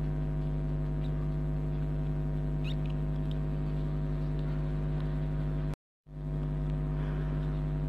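Steady electrical mains hum with a buzzy edge, and a couple of faint ticks; it cuts out completely for a split second about six seconds in.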